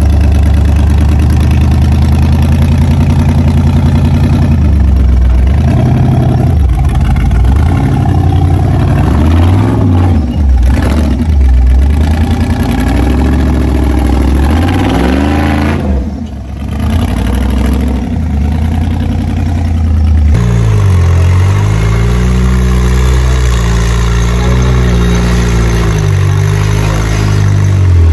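Off-road rock crawler's engine running loud and revving up and down repeatedly as it works over obstacles, easing off briefly a little past halfway.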